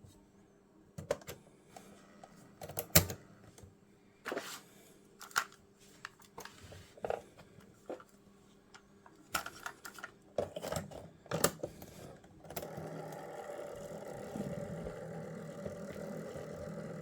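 Scattered sharp plastic clicks and knocks from a cassette boombox being handled and its controls worked. About two-thirds of the way in a steady, faint mechanical running sound with a low hum sets in and continues.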